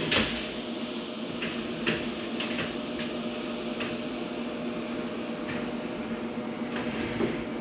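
Scattered light clicks and taps as quail eggs are set into an incubator, over a steady machine hum holding a couple of fixed tones.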